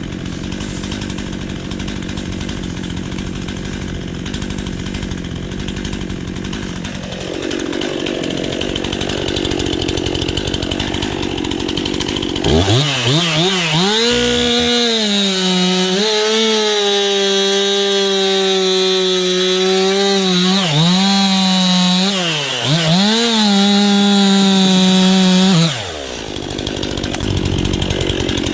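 Stihl MS 261 two-stroke chainsaw running at high revs while bucking logs, its sharp chain cutting. The engine holds a steady high pitch, dips briefly a few times, and then drops back near the end.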